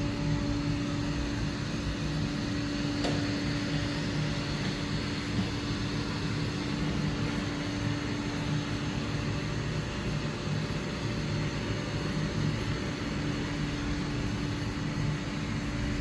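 Roomba robot vacuum running across the floor: a steady motor whir with a held hum, the hum dropping out briefly about ten seconds in.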